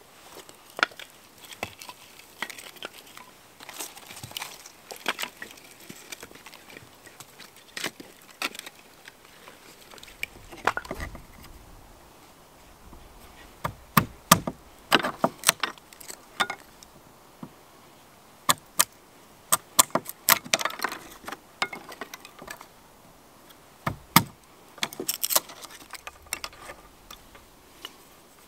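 A hatchet chopping into a dead log, then sharp wooden knocks and cracks as kindling sticks are split with a knife on a wooden table. The blows come irregularly, a few at a time, with the loudest run in the second half.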